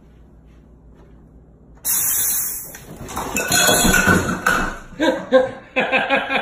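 A countertop soda maker suddenly lets out a loud burst of hiss about two seconds in, held briefly before it fades. A person's excited voice and knocking clatter follow.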